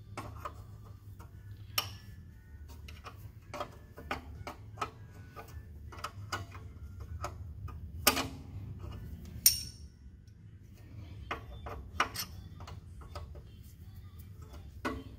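Two steel wrenches clicking and clinking against a carburetor's brass fuel line fitting and nut as they are worked to break the fitting loose. The clicks are irregular, with a sharper metal knock about eight seconds in and a knock with a brief ring about a second later, over a steady low hum.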